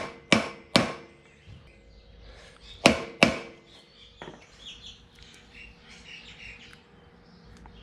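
Hammer tapping a new steering-knuckle bearing outer race into its housing through a soft block, seating it. Three quick sharp taps at the start, two more about three seconds in, then one lighter knock.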